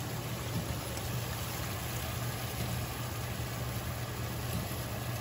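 Steady stovetop noise from a gas range: a pot of pasta boiling and a skillet of mushrooms and tomatoes in garlic oil and broth simmering, over a low steady hum.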